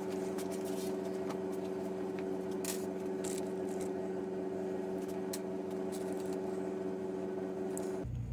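A steady machine hum of several held tones, with scattered light clicks and taps. Near the end the hum stops abruptly and gives way to a lower hum.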